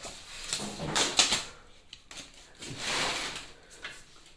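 A few light clicks and knocks about a second in, then softer rustling, as of parts being handled.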